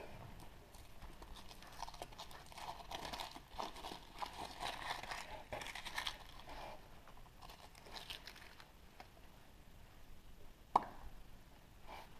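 Foil wrapper of a chocolate surprise egg crinkling and tearing as it is unwrapped, with a run of crackles and clicks in the middle and one sharp click near the end.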